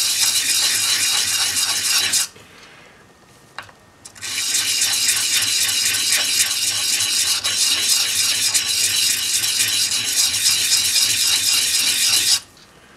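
A small rusty part from a Stanley 71 router plane being rubbed in quick circles on 400-grit sandpaper wet with WD-40, backed by a flat granite tile: a fast, gritty scratching. It stops for about two seconds a couple of seconds in, then runs again until near the end. This is rust being scoured off so the binding part slides freely.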